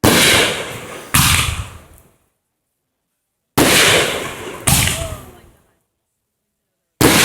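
Fireworks going off: loud, sudden bangs that each fade over about a second. They come in two pairs about a second apart, then a fifth bang near the end, with dead silence between.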